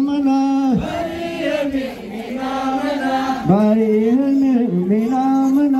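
A man chanting a traditional dance song into a microphone, holding long steady notes in repeated phrases that each dip in pitch before the next starts.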